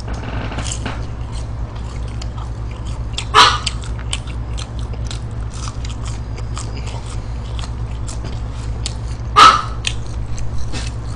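Close-miked chewing of french fries and chicken nuggets, with small mouth clicks and crunches throughout, over a steady low hum. A small dog barks sharply twice, about three and nine seconds in.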